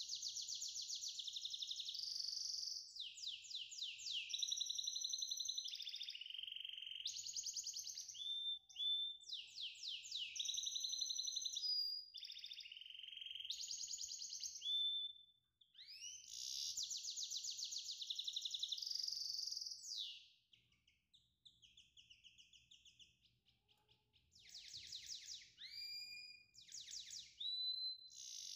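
A songbird singing: long phrases of fast trills, rapid repeated notes, upward-sweeping whistles and held high notes, with brief pauses between phrases.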